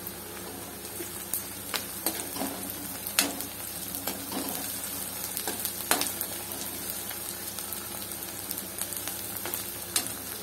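Chopped onions and green chillies sizzling in hot oil in a kadai, stirred with a steel ladle that clicks and scrapes against the pan now and then.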